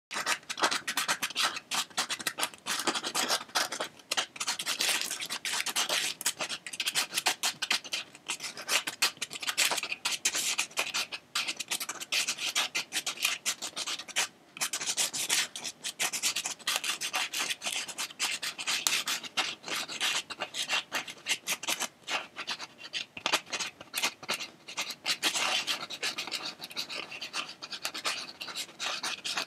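A drawing tool scratching across paper in quick, continuous strokes as an elephant is sketched.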